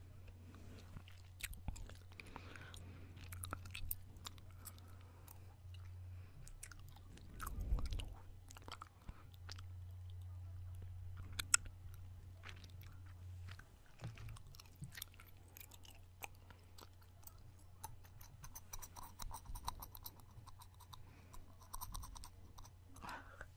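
Close-miked gum chewing: many soft, wet clicks and smacks of the mouth, with a steady low hum underneath and a dull bump about eight seconds in.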